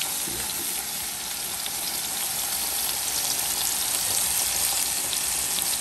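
Herb-crusted lamb roast searing in hot oil in a pot over a high burner, browning the outside: steady sizzling with small crackles.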